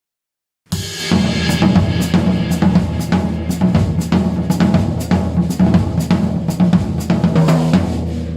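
Music led by a drum kit, with snare, kick and cymbal hits over sustained bass tones. It starts suddenly just under a second in.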